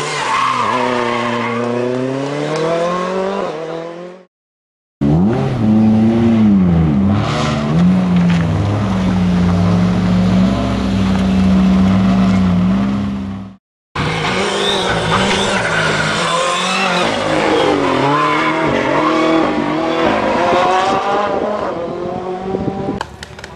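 Ford Fiesta rally car engine revving up and down through corners, its pitch rising and falling. The sound comes in three pieces separated by two abrupt silent cuts. The middle piece holds a long steady high pitch for several seconds.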